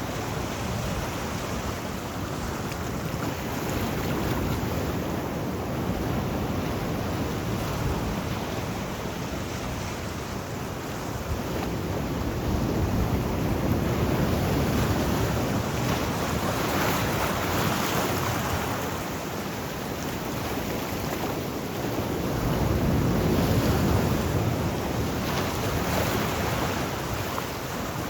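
Sea waves washing in on the shore, a steady surf that rises and falls in slow surges several seconds apart.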